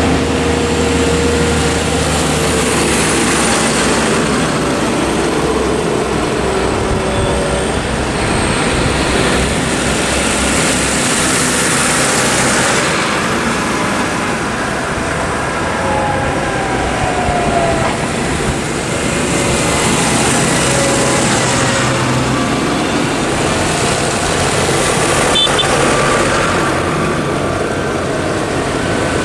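A convoy of tractors driving past, their diesel engines running, with a steady rush of noise that swells and fades as each vehicle goes by.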